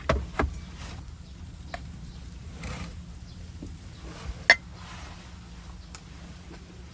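A few sharp knocks and clicks over a steady low background: two close together right at the start, a few faint ones, and the loudest single click about four and a half seconds in.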